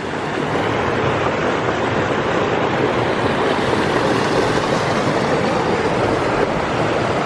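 Rushing river water, a steady loud roar of flowing and cascading water that swells a little in the first second.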